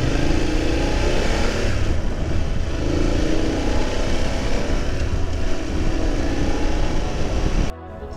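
Motorcycle engine running on the road with wind noise, its pitch rising now and then as it accelerates. The sound cuts off abruptly near the end.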